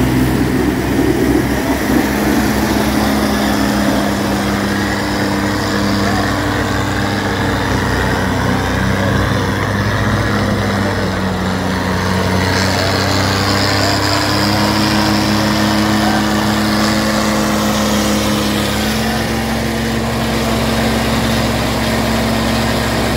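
Two diesel tractors, a Mahindra 575 DI and a Swaraj, running hard while chained back to back and pulling against each other in a tug-of-war. Their engine notes step up and down in pitch a few times as the drivers work the throttles.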